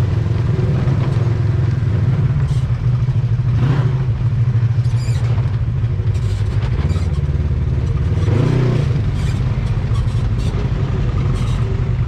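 Polaris RZR side-by-side running steadily under way.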